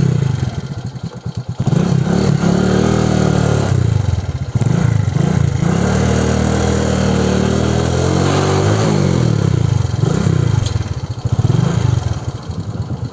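Motorcycle engine running while riding, its revs rising and falling several times.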